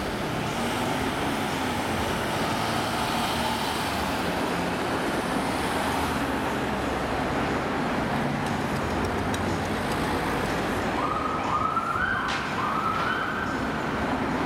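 Steady city traffic: engines and tyres of passing cars and buses. Near the end an emergency vehicle's siren comes in as a few short rising sweeps.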